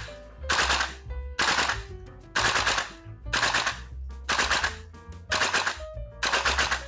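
VFC M727 gas-blowback airsoft rifle firing short full-auto bursts, about one burst a second, its bolt cycling rapidly on green gas, over background music.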